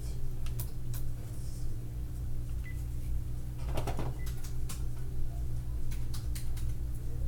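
Steady low electrical hum with scattered light clicks and a brief louder rustle about four seconds in.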